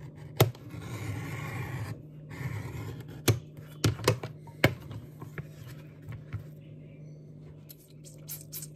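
A craft knife cutting through thick leather along a steel rule, a dry scraping draw, with sharp clicks and knocks of the knife and steel rule on the cutting mat: one loud click about half a second in and a cluster of them around three to five seconds in.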